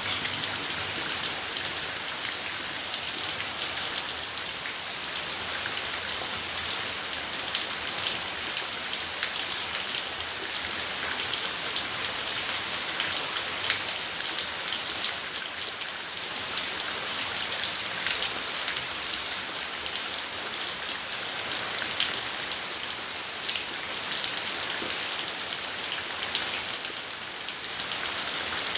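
Steady rain falling, a continuous hiss with many individual drops ticking through it.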